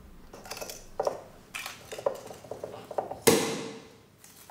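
Tableware being handled: several light clinks and knocks, then a louder ringing clink about three seconds in.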